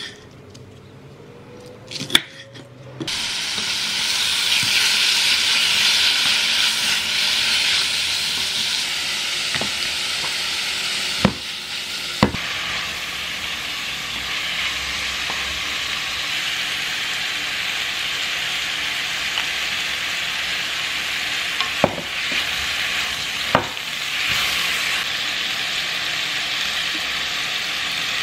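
Knife cutting green onions on a wooden board for about three seconds. Then thin-sliced pork belly and green onion sizzle loudly in a hot pan while being stir-fried with wooden utensils, with a few sharp knocks of the utensil against the pan.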